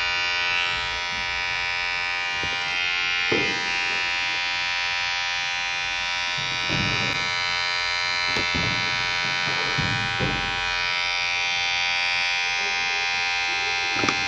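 Electric hair clipper running steadily, a dense, even buzz, with a few brief louder rasps along the way.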